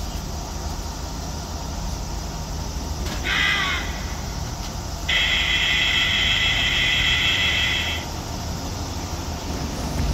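Steady road and engine noise of a car cruising on an expressway, heard from inside. About three seconds in, a short high tone falls away at its end; a second, steady high tone follows and holds for about three seconds.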